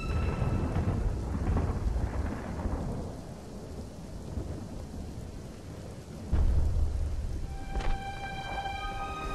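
Thunder rumbling over steady rain, in two rolls: one at the start lasting about three seconds and a louder one about six seconds in. Music notes come in near the end.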